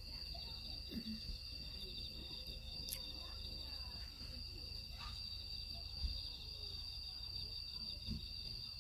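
A steady insect chorus: several high, continuous trills overlapping, one of them pulsing rapidly. A few soft knocks and clicks sound over it.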